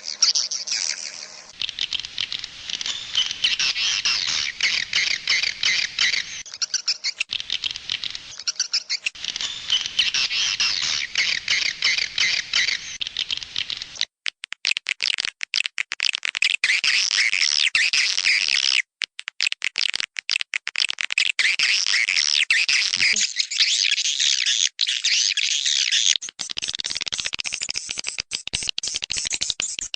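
A large group of edible-nest swiftlets twittering: dense, overlapping high chirps and clicks, with a few brief breaks.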